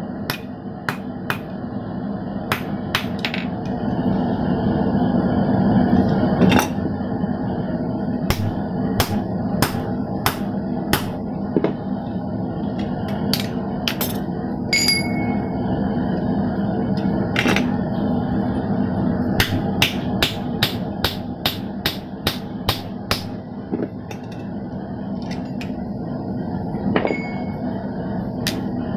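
Hammer blows on red-hot steel bar stock on a hornless steel anvil: irregular strikes, coming about three a second in a run past the middle, a few ringing briefly. A steady low hum runs under the blows.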